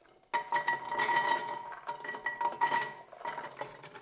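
Soaked giant beans poured from a ceramic dish into an empty stainless steel pressure cooker pot: a rapid clatter of beans hitting the metal, which rings. It starts about a third of a second in and thins out toward the end.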